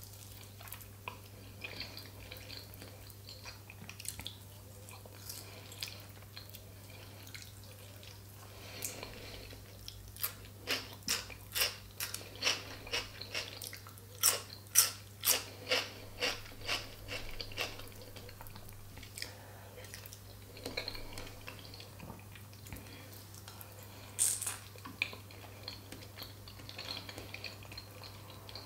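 Close-miked eating: a person biting and chewing smoked mackerel and pickled onion, with wet mouth clicks and smacks. In the middle comes a run of loud, crunchy chews, about two a second.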